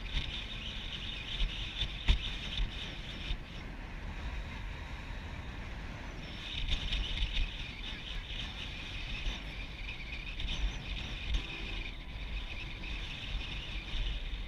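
Wind buffeting the camera microphone: an uneven low rumble, with a higher hiss that fades about three seconds in and comes back about six seconds in.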